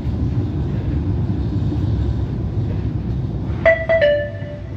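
Steady low running rumble inside a moving tram. Near the end, a short chime of two or three notes, the last one lower, plays over it: the onboard passenger-information chime that comes before a stop announcement.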